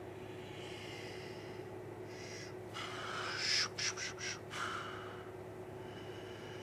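A man breathing close by: a faint breath early on, then a louder breath in several short pulses about three seconds in, over a steady faint hum.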